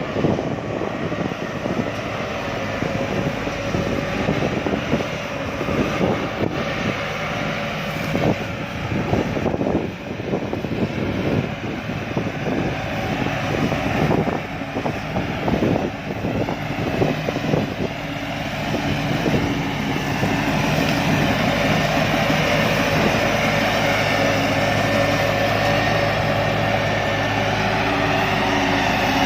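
Combine harvester's engine running steadily, with irregular knocks and clatter over its first half or so. From about twenty seconds in it runs steadier and a little louder.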